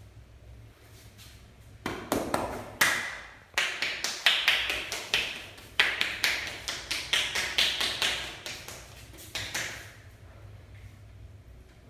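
Rapid percussive massage strokes: hands tapping and slapping quickly on a person's body in several runs, starting about two seconds in and stopping near the end.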